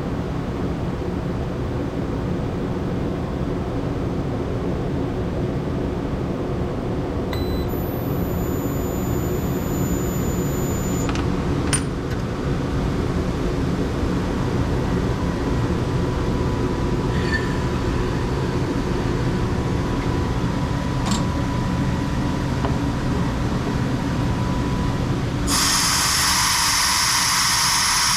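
Steady hum of a shrink-fit tool-holder machine in a workshop. It carries a few short electronic beeps and a click, then a steady thin high tone. About 25 seconds in, a loud rush of air starts suddenly.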